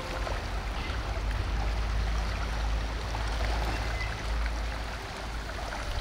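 Shallow creek water running over a gravel bed, a steady rushing with a low rumble underneath.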